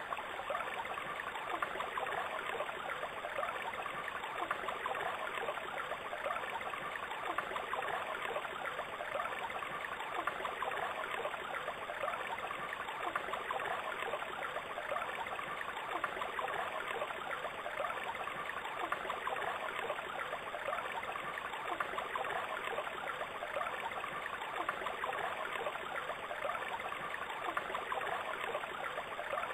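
Steady trickling, flowing water with no break or change.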